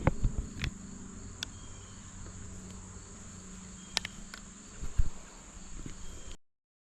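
Crickets trilling in one steady, unbroken high note, with a few knocks and bumps close to the microphone; the sound cuts off near the end.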